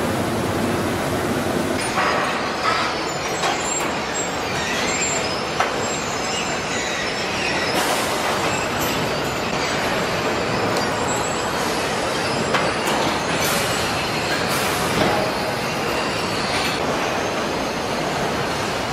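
Vehicle assembly-line machinery noise: a steady industrial din with scattered metal clanks and brief metallic squeals.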